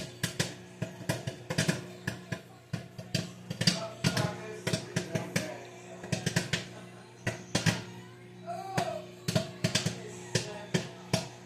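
Microwave popcorn popping rapidly and irregularly in its bag, over the steady hum of the running microwave oven.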